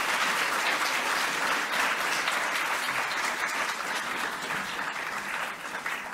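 Audience applauding, the clapping gradually dying down towards the end.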